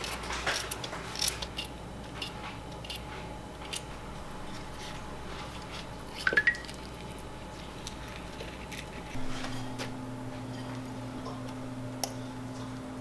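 Kitchen knife cutting a cucumber held in the hand over a bowl, a run of short crisp cuts, then a metal spoon scraping avocado flesh from its skin, the loudest moment, with a brief squeak about six seconds in. A steady low hum starts about nine seconds in.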